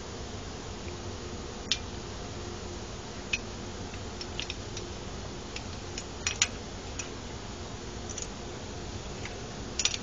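A steady low background hum with scattered sharp clicks, a few of them close together about six seconds in and again near the end.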